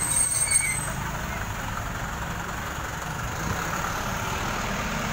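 A motor vehicle engine idling, a steady low rumble.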